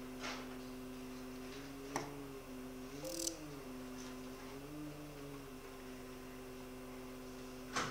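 Zeiss Visalis 100 phacoemulsification machine's feedback tone, a steady two-note hum that rises in pitch and falls back twice as the aspiration vacuum builds and releases, with a few sharp clicks and a brief hiss.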